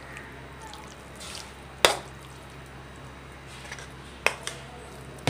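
A metal spoon knocking sharply against a metal pan while thick beef masala is scooped out and spread onto rice. There is one clink about two seconds in, two more in quick succession near the end, and soft scraping of the spoon between them.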